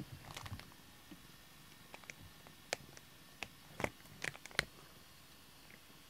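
A cat gnawing and licking a pink plastic bristle brush, its teeth and the brush making scattered sharp clicks and taps, most of them between about two and five seconds in.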